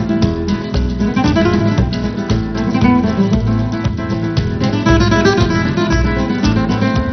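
Background music: strummed acoustic guitar in a flamenco style over a steady low beat.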